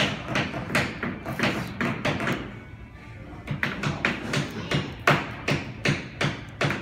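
Hammers tapping nails into wooden kit pieces, a run of sharp knocks about three a second, pausing briefly near the middle.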